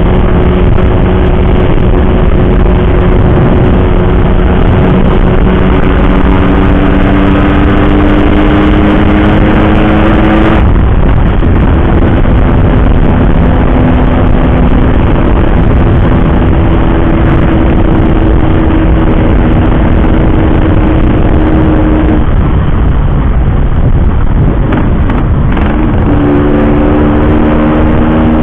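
Yamaha RX-King's two-stroke single running loud through an aftermarket racing exhaust under way. Its pitch climbs slowly for about ten seconds and drops sharply at an upshift, then holds steady, eases off and picks up again near the end.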